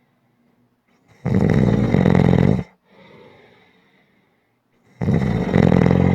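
A person snoring: two loud, rattling snores, each lasting about a second and a half and coming about four seconds apart. A much softer breath out follows the first.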